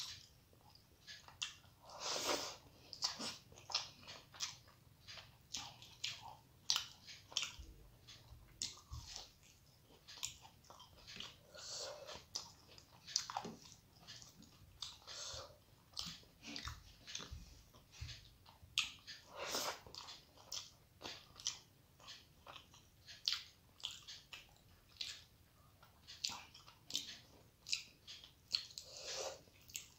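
A person chewing a mouthful of rice and fish curry, with many short wet mouth clicks and lip smacks in an irregular run and a few louder smacks scattered through.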